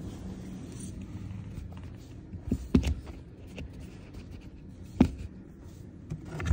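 A few sharp clicks and knocks from handling, over a low steady hum; the two loudest come about three and five seconds in.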